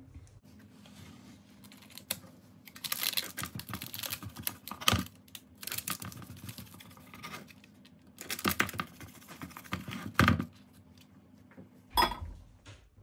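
A knife sawing through the crisp, baked crust of a leek cake in a paper-lined tray, in bursts of scratchy, crackly cutting strokes. A few sharp knocks stand out: about a third of the way in, past the middle, and near the end.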